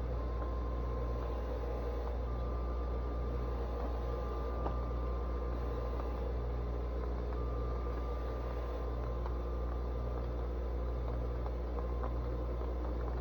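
Steady low mechanical hum with a slow pulsing in it and faint whining tones above, with no change in level.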